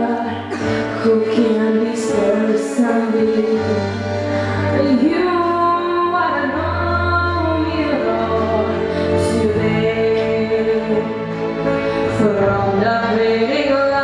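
A young woman singing a solo song into a handheld microphone over instrumental accompaniment with steady bass notes.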